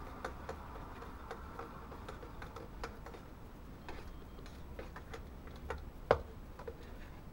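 Spoon clinking against the inside of a metal cup while stirring, small light clicks at about three a second, with one louder knock a little after six seconds in.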